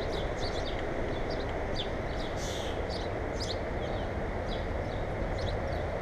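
Birds chirping in short, high calls, several a second, over a steady low rushing noise.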